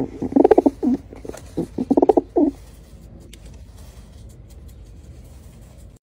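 Pigeon cooing: two rolling, rapidly pulsed coos in the first two and a half seconds.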